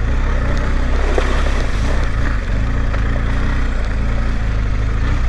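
Motorcycle engine running at a steady speed while riding, with wind and road noise on the bike-mounted camera.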